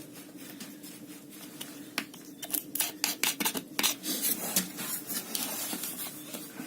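Steel blade of a small folding multitool scraping and grinding in wood as a hole is bored, with a quick run of clicks and scrapes about two seconds in and a steady scratchy rasp after it.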